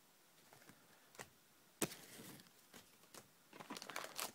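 Hands handling trading cards and reaching into a cardboard booster box: a few soft taps, one sharp click about two seconds in, and a run of quick rustles and knocks near the end.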